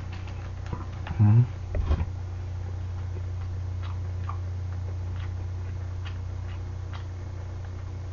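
Swallowing, with faint irregular gulping clicks, as beer is drunk straight from a glass bottle, after a short low hum of the voice about a second in. A steady low air-conditioner hum runs underneath.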